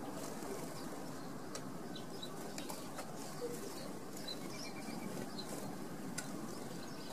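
Outdoor garden ambience: a steady hiss with faint, short, high chirps of small songbirds around a feeder and a few light clicks.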